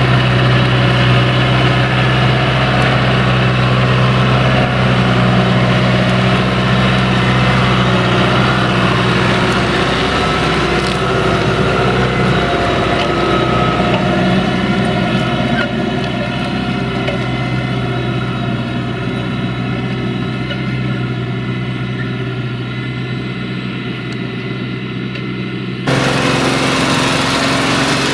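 John Deere tractor's diesel engine running steadily under load while plowing in wet ground. The sound gradually eases a little, then changes abruptly near the end.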